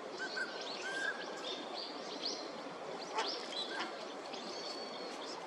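Northern pintail ducks calling: many short whistles and chirps, overlapping and irregular, over a steady hiss of background noise.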